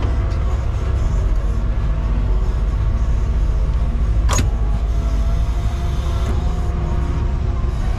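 Volvo EWR170E wheeled excavator's diesel engine and hydraulics running steadily, heard from inside the cab while the arm works. A single sharp knock comes about four seconds in.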